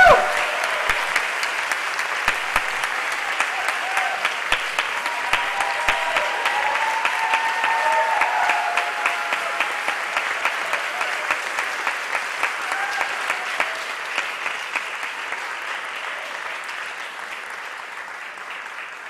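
Theatre audience applauding, with a few cheers over the clapping. The applause slowly dies away.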